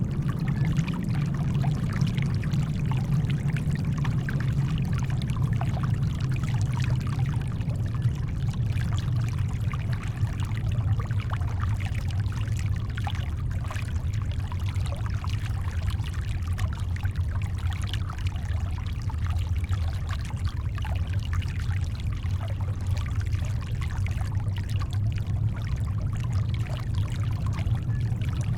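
Shoreline water lapping, mixed with brown noise: a steady deep rumble with faint small splashes over it, unchanging throughout.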